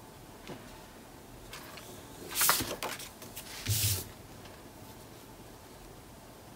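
Patterned scrapbook paper being handled: two brief papery rustles, about two and a half and four seconds in, the second with a soft low thump.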